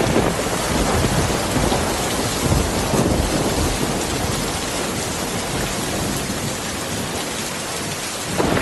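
Heavy rain falling steadily, with a low rumble of thunder in the first few seconds.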